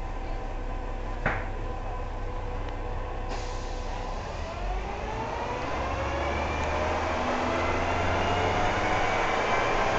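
Interior of a SICCAR 177 city bus under way. The engine and drivetrain rise steadily in pitch as the bus accelerates, with a single sharp knock about a second in.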